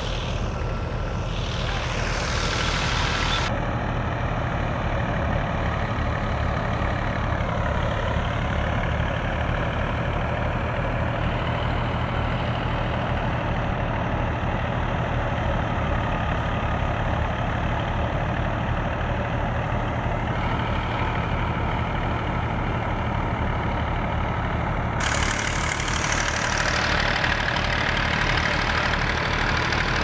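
Steady drone of a wheat thresher driven by a Fiat 480 tractor's three-cylinder diesel engine, running at a constant speed under load.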